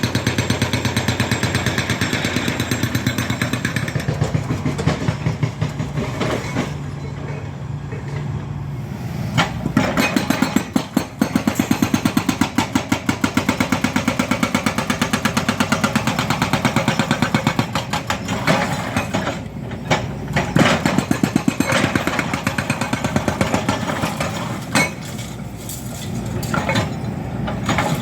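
Heavy diesel earthmoving machinery working: engines running hard with a fast, even pulsing clatter that swells and fades several times.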